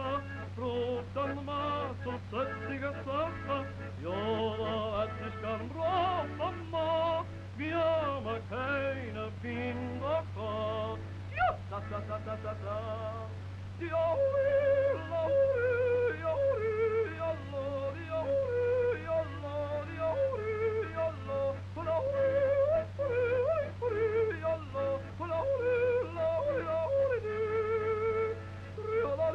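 A singer yodeling, the voice jumping and wavering between notes and growing louder about halfway through. A steady low hum runs underneath.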